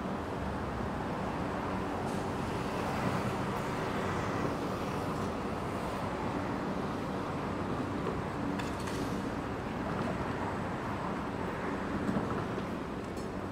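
Steady city street traffic: vehicle engines and tyres on the road, with a low engine hum underneath.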